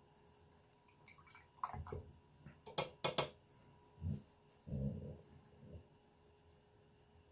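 Small plastic watercolour half pans clicking sharply as they are handled and picked out of a paint palette, followed by a few dull low thuds.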